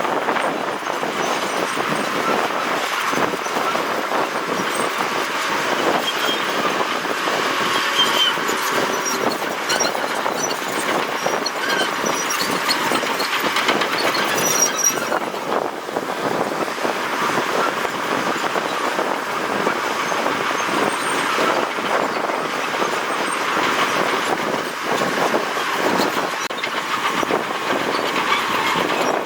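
Heavy earthmoving machinery at work: a diesel engine running under load with a steady mechanical clatter.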